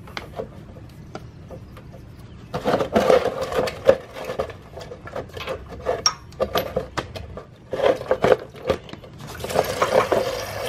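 Irregular clicks and knocks of a hand tool working the coolant drain bolt under a Kawasaki Vulcan 900, with a catch container being shifted beneath it. Near the end a steady hiss starts as coolant begins to run out of the drain.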